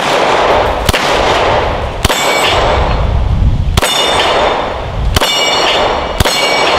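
Canik TP9SFx 9mm pistol fired about six times at a slow, uneven pace, roughly a second or more between shots. Steel targets ring with a clang after the hits.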